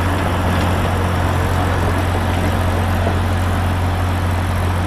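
Massey Ferguson 7250's three-cylinder diesel engine droning steadily under load as it pulls an 8-ft rotavator with the blades working fully down in the soil.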